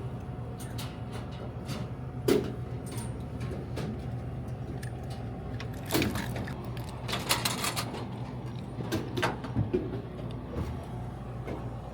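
Scattered knocks and clicks of products and parts being handled while a vending machine is restocked. There is a sharp knock about two seconds in, a quick run of clatter in the middle, and more knocks near the end, over a steady low hum.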